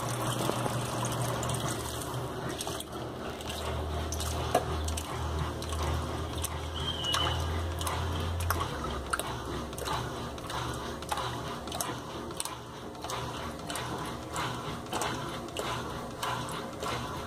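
Washing machine with water running and splashing in its tub, over a low motor hum that stops about halfway through. Scattered light clicks and ticks follow.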